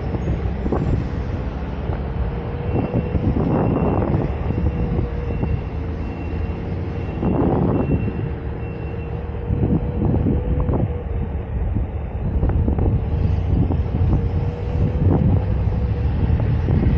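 Onewheel GT electric hub motor whining steadily as the board rides along, its pitch wavering slightly with speed, under a low wind rumble on the helmet-mounted microphone. Scattered short knocks from the wheel running over bumps and seams.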